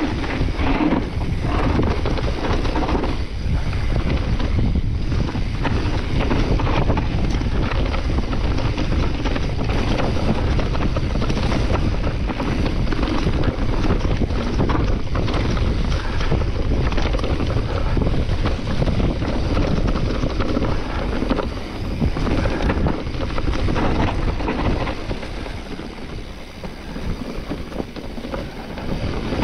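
Wind buffeting a mountain bike rider's camera microphone, mixed with tyre noise and the bike rattling over a leaf-covered dirt trail. It is a little quieter for a few seconds near the end.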